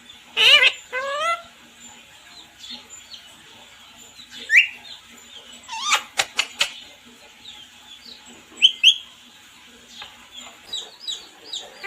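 Pet parrot calling: separate short, sharp calls and chirps with pauses between, a loud burst near the start, a few around the middle, and a quick run of falling chirps near the end.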